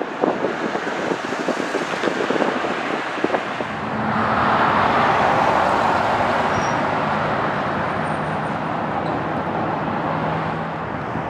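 Airliner jet engine noise on the runway: for the first few seconds a rough, crackly rumble from a landing Boeing 737, mixed with wind on the microphone. From about four seconds in comes a louder, smoother, steady rush of jet engine noise with a faint low hum, from a Virgin America Airbus A319's turbofan engines.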